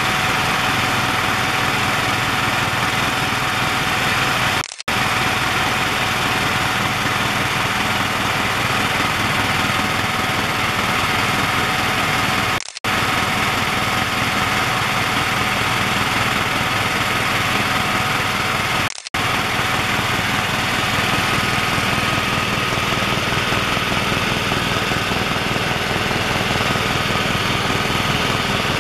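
Cabin noise of a HeliJet Sikorsky S-76 twin-turbine helicopter in cruise: a loud, steady rush of rotor and engine noise with a few constant high turbine tones. The sound cuts out for a split second three times.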